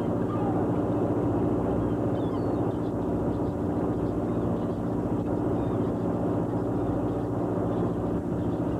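Commercial fishing boat's engine running at a steady, even drone.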